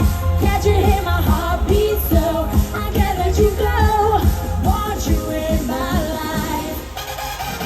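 Live Eurodance pop music played loud over a concert sound system: a heavy bass beat under a bending, sung or synth-led melody. The bass drops out briefly near the end.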